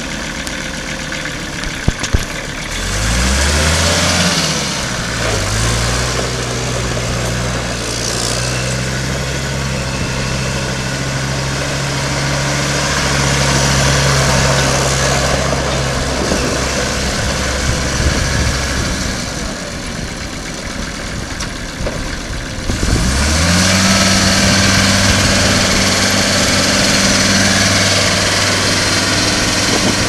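Kubota M4700 tractor's four-cylinder diesel engine running under way. It revs up about three seconds in and holds a steady pitch, eases off for a few seconds past the middle, then picks up again to a higher steady note near the end.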